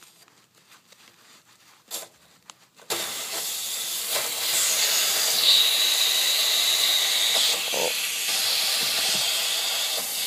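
Water heater drain valve opened under mains pressure: after a click, water suddenly rushes out with a loud steady hiss about three seconds in, and a high whistle sounds for a couple of seconds midway. The hose connection at the drain spigot is spraying, which the owner puts down to it not being tight enough or the hose being too old.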